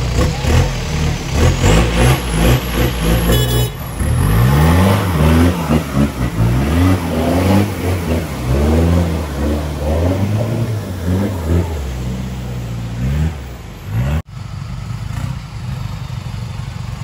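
Off-road 4x4's engine revving up and down over and over, as it does when driving hard on a slippery climb. About fourteen seconds in the sound breaks off abruptly, and a steadier engine noise follows.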